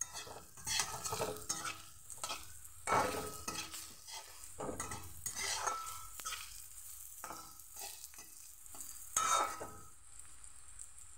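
Flat metal spatula scraping and stirring in a metal karahi, stir-frying whole boiled eggs with greens in a little oil, with a sizzle under the strokes. The strokes come irregularly, one louder about nine seconds in; near the end the stirring stops and only the steady sizzle remains.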